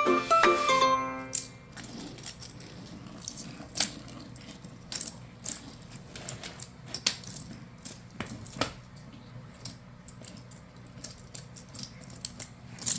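A short musical phrase ends about a second in. Then small hard toy building pieces click and clack irregularly as they are handled and set down.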